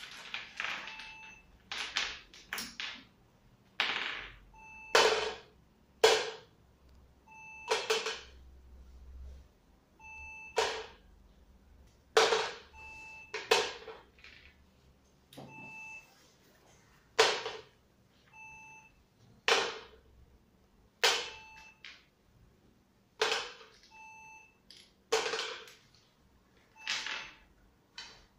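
Toy pieces knocking, sharp and sudden, roughly one every one to two seconds, with short faint beeps between some of them.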